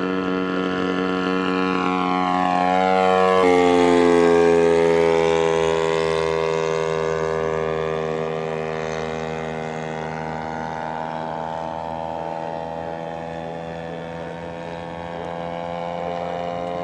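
Radio-controlled model airplane engine passing by with a steady buzz. It gets louder to a peak about four seconds in, and its pitch drops sharply as it goes past, then holds lower while it fades and grows a little louder again near the end.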